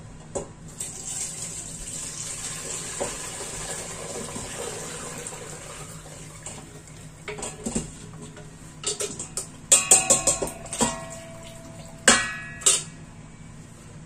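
Beef broth poured from a stainless saucepan through a fine mesh strainer into a stainless stock pot, a steady splashing pour. In the second half come several sharp metal clanks with ringing as the pan and strainer knock together; the loudest are about ten and twelve seconds in.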